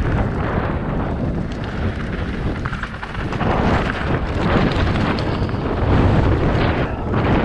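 Wind buffeting the microphone and tyres crunching over loose gravel and shale as a downhill mountain bike descends at speed, with swells of louder rumble.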